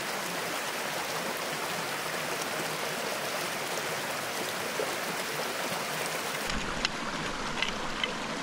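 Small mountain brook running over rocks: a steady rush of flowing water. About six and a half seconds in, the sound turns deeper, and a few short, sharp clicks or splashes follow near the end.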